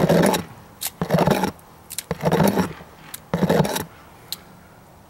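A messy water dish being scrubbed or scraped out: four scraping strokes about a second apart, followed by one light click.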